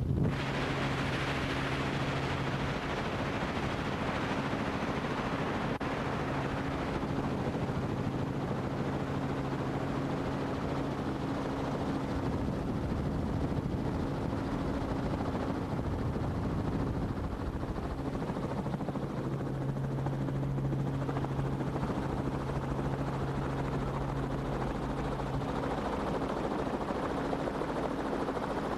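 Helicopter engine and rotor running steadily, a constant drone with a low steady hum.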